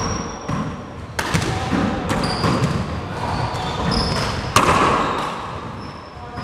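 Handball rally in a four-wall court: the ball is struck by hand and smacks off the walls and hardwood floor several times, each sharp crack ringing in the enclosed court, the loudest about four and a half seconds in. Short high squeaks, likely sneakers on the hardwood floor, come between the hits.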